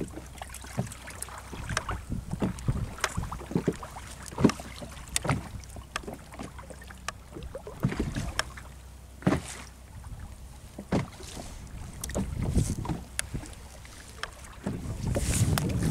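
Scattered knocks and clicks of fishing gear and bait being handled aboard a small open fishing boat, over a steady low rumble of wind on the microphone. A louder wash of wind or water comes in near the end.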